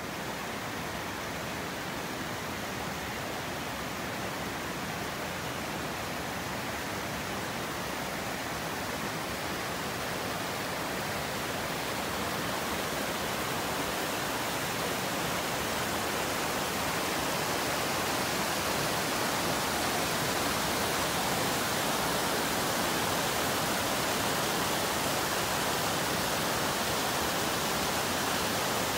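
Rushing river water: a steady, even rush of whitewater that grows slightly louder through the stretch.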